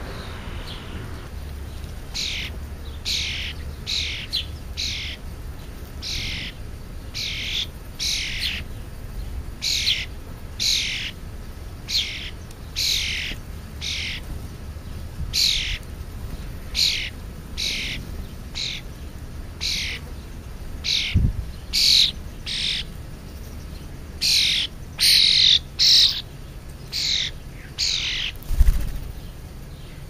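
Sparrows chirping over and over: short, sharp, falling chirps about one a second, louder and closer together near the end.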